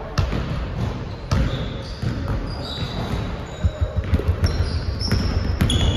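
Basketballs bouncing on a hardwood gym floor: irregular thumps from more than one ball, with short high sneaker squeaks on the court.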